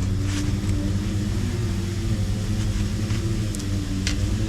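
Steady low motor hum, with a few sharp snips of diamond nippers cutting cow hoof horn, one near the start and two near the end.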